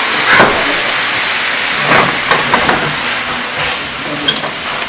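Cream sauce sizzling in a hot frying pan, a steady hiss that fades a little, with a few faint clicks from a spatula stirring it.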